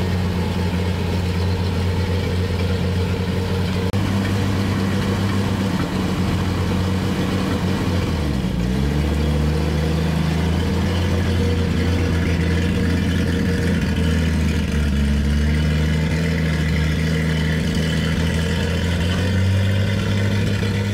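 1951 Dodge B-series truck's flathead six-cylinder engine running steadily as the truck is driven slowly. The engine note shifts to a slightly different speed about eight seconds in and then holds steady.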